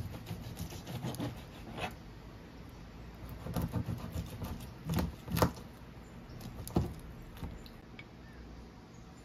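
Knife cutting through a whole roasted pork belly with its browned crust on a cutting board, held with metal tongs: a run of irregular crunching cuts and sharp knocks of the blade on the board, the loudest a little after five seconds and again near seven seconds.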